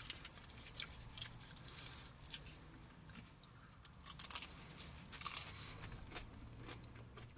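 Close-up chewing of fried chicken strips: wet mouth clicks, lip smacks and crunches of the breading, coming in several short spells.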